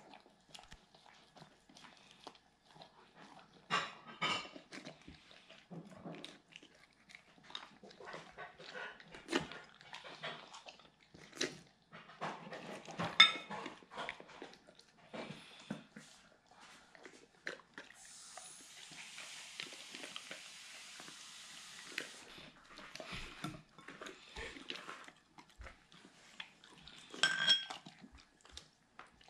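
Doberman eating from plates and glass dishes: irregular chewing, licking and crunching, with a sharp knock about halfway through. A steady hiss runs for about four seconds after that.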